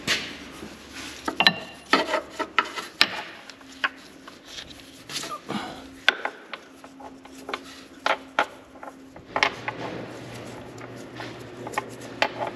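Ratchet wrench and metal socket clinking and clicking in irregular knocks as a socket is fitted and tried on the crankshaft bolt.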